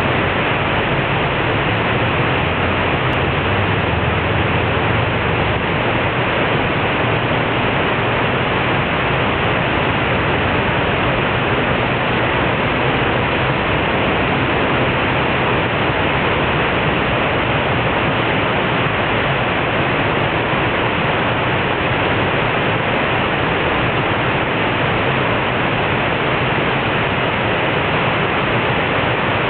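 River water pouring over a concrete weir: a loud, steady rush of white water that does not let up.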